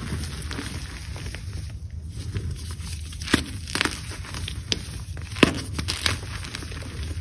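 Blocks of cornstarch gym chalk crumbling and breaking in bare hands, a dense crackly crunching of soft chalk and powder. Two sharper snaps land about two seconds apart in the middle, all over a low steady hum.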